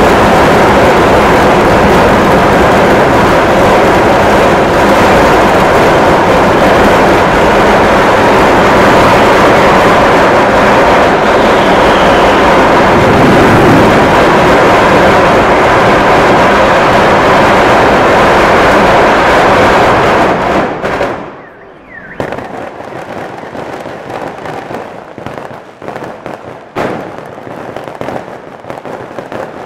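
A fireworks barrage fires so rapidly that the bangs merge into one continuous, overloaded roar. About twenty seconds in it cuts off sharply, leaving scattered bangs and crackles.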